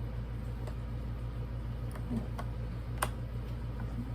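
A few scattered clicks, the strongest about three seconds in, from the buttons and controls of a Jeti DS-12 RC radio transmitter being worked by hand, over a steady low hum.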